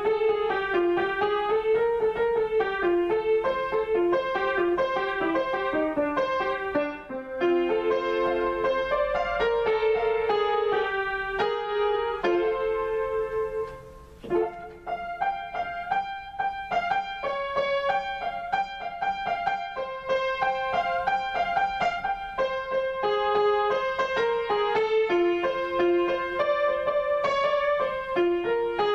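Solo acoustic piano improvisation: a continuous run of melody and chords, with a brief quieter lull about halfway through that ends in a firmly struck chord.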